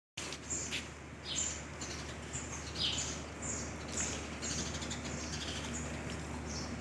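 Small birds chirping: short, high, falling chirps repeating about every half second, over a steady low hum.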